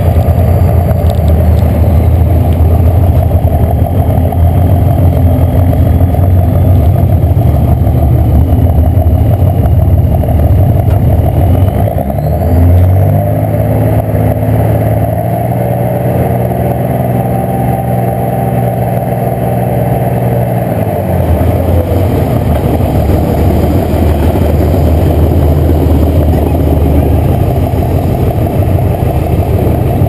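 Diesel pickup truck engine running loud through a chrome exhaust stack in its bed, heard right beside the stack as the truck drives slowly. About twelve seconds in it settles into a steady, even drone for some eight seconds, then turns rougher again.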